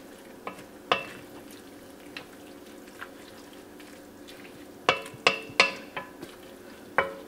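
Wooden spoon stirring lentils and Swiss chard in an enamelled pot, knocking against the pot now and then: a few single knocks, then a quick run of three about five seconds in and another near the end, over the low sound of the pot simmering.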